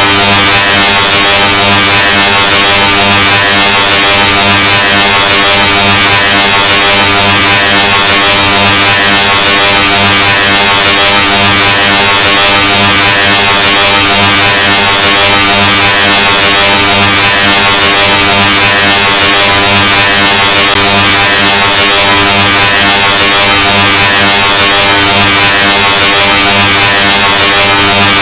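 "Loudness 2.0" meme sound effect: an extremely loud, heavily distorted buzzing drone pushed to full volume, with a low hum under a harsh hiss. It holds steady, with a slight slow wobble in the low notes.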